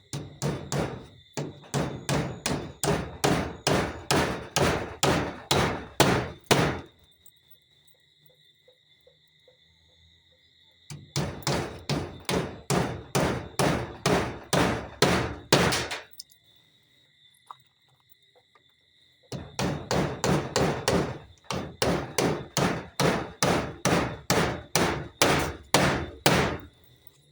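Hammer driving nails with rapid, even blows, about three a second, in three runs of several seconds each with pauses between. Crickets chirp steadily in the background.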